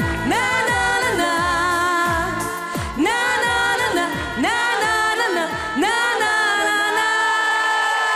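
Live pop band with lead and backing vocals playing the closing bars of a Russian pop song, with deep drum hits that drop in pitch. The song comes to rest on a long held final chord about six and a half seconds in.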